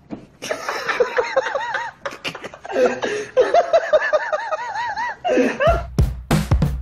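A person laughing in two long runs of quick, repeated rising-and-falling 'ha' sounds. Music with a heavy drum beat starts near the end.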